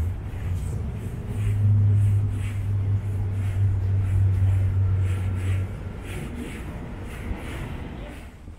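Low, steady vehicle rumble that swells about a second and a half in, holds for about four seconds, then eases off near the end.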